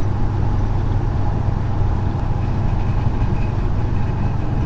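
1977 Chevrolet C10 pickup cruising at very light throttle, heard from inside the cab as a steady low engine and road drone. This is the throttle condition in which the truck makes a new rattling noise under the hood, its cause not yet found (A/C clutch, power steering pump or alternator are the suspects).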